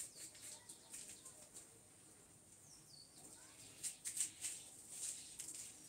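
Faint swishing of a duster wiped across a whiteboard in short, irregular strokes, with a lull around the middle before the strokes pick up again.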